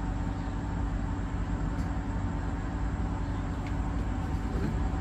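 Steady low mechanical hum with a few even tones, with no distinct knocks or changes.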